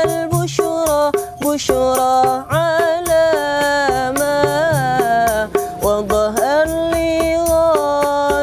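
Live sholawat music from street buskers. An ornamented melody of held and sliding notes runs over a steady hand-drum beat.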